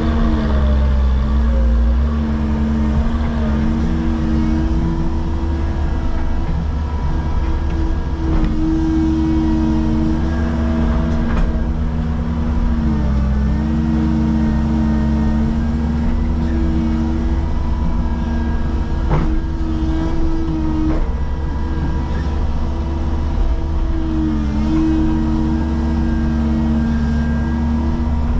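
Caterpillar excavator's diesel engine and hydraulics running steadily, heard from inside the cab, with a deep rumble and a steady whine. The pitch sags briefly a handful of times as the arm works.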